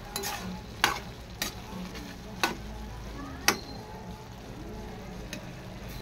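A spatula stirring shredded santol in a stainless steel pan, knocking sharply against the pan about five times, over a steady sizzle of the food frying.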